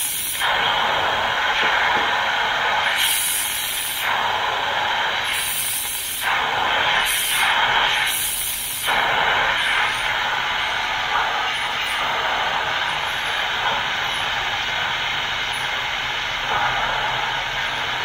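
Instant Pot pressure cooker's release valve venting steam in a steady hiss during a quick release, the pressure being dumped from the pot. Several brief, sharper spurts break through in the first nine seconds or so.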